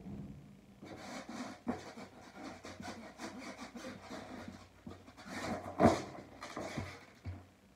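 Skateboard on carpet: shoes scuffing and rubbing on the deck, with wooden knocks as the board is popped and flipped. The loudest knock comes about six seconds in.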